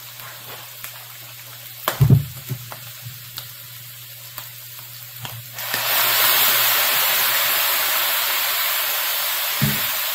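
Shrimp in an electric skillet sizzling loudly and suddenly about halfway through, as wet, freshly boiled linguine is dropped in with tongs; the sizzle eases slowly. Before it, a steady low hum and a few knocks and clinks of tongs and the pasta pot.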